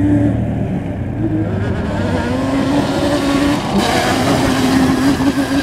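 Yamaha Banshee 350's twin-cylinder two-stroke engine revving up and down as the quad rides past, louder about two thirds of the way in as it comes closest.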